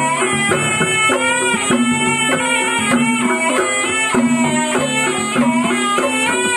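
Live ebeg accompaniment led by a slompret, a Javanese double-reed shawm, playing a bending, wavering melody over repeated low tones and steady drum strokes.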